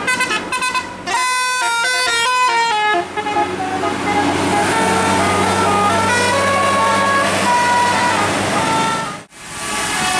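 Bus telolet horn, a Basuri multi-tone musical air horn, playing a tune: quick short notes at first, then slower stepped notes over a low engine hum and a steady hiss. The sound cuts off abruptly about nine seconds in, and then the hiss returns.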